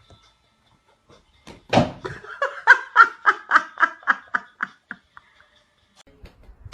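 A person bursting into laughter about two seconds in: a loud first outburst, then a run of quick, evenly spaced laughs, about four a second, that fade away.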